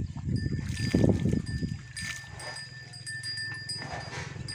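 Cattle lowing: a low, rough call in the first two seconds, loudest about a second in, followed by a steady low drone.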